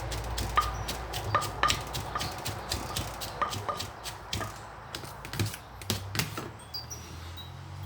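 Pestle knocking in a mortar as som tum is pounded and mixed: irregular sharp knocks, a few a second, some with a short ring.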